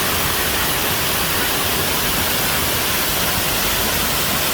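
Waterfall pouring into a pool, a loud steady rushing hiss.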